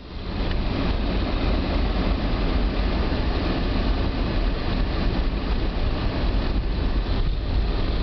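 Steady low road rumble and tyre noise from a car driving on snow-covered streets, heard from inside the cabin.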